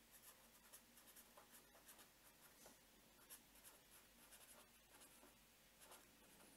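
Faint scratching of a fine-tipped pen writing on paper, a string of short quick strokes.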